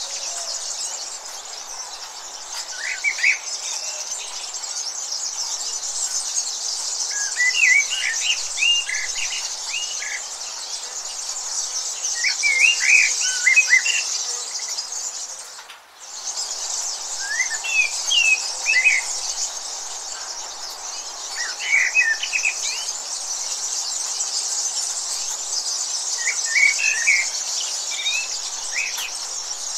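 Small birds chirping in short phrases every few seconds over a steady high insect chorus; the whole sound dips briefly about halfway through.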